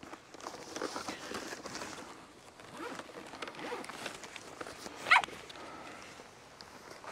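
A dog whining softly a few times, with one sharper, short falling whine about five seconds in, over light rustling.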